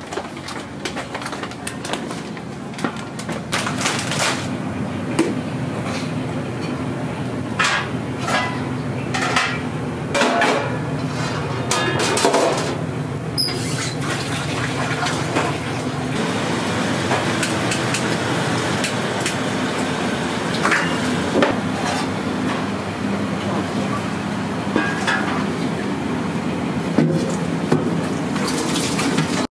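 Commercial kitchen work: pots and metal utensils clanking and knocking, with water or stock being poured, over a steady low hum. The clatter is busiest in the first half.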